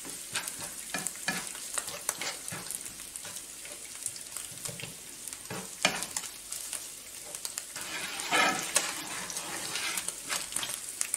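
Breadcrumbs frying and sizzling in olive oil in a non-stick frying pan, stirred with kitchen tongs that click and scrape against the pan. The crumbs are being toasted until crisp without burning.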